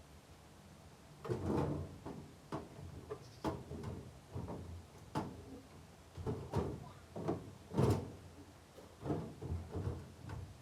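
Irregular knocks and clunks, about a dozen, some ringing briefly, as a metal toolbox sitting on a jack is shifted and knocked into place.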